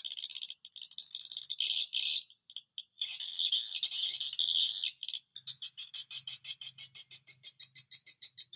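Swiftlet calls: a rapid, evenly pulsed chirping twitter, coming in runs with short breaks. A faint low hum sits under the second half.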